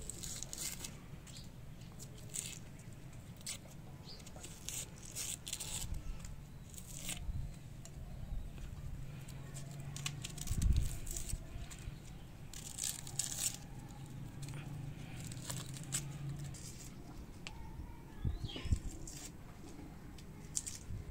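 A small knife peeling and cutting red onions by hand: irregular short scrapes and crackles of papery onion skin under the blade, with a dull knock about ten seconds in and a faint low hum underneath.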